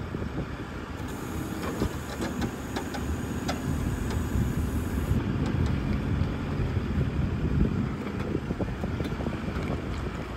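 Diesel engine of a JCB loader running under load as it raises a grab full of wet manure over a trailer, its steady low drone swelling slightly after the first second.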